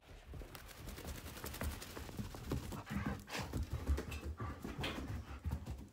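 A standard poodle running around on carpet, its paws landing in faint, irregular soft thuds.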